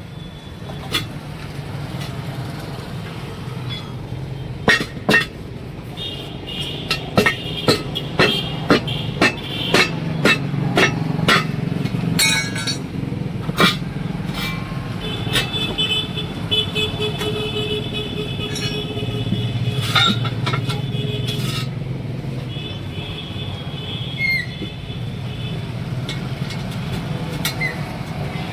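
Tyre-changing work: a run of about a dozen sharp metal-on-metal blows, roughly two a second, each leaving a high ring, over a steady low engine and traffic rumble. Later come drawn-out high metallic ringing tones.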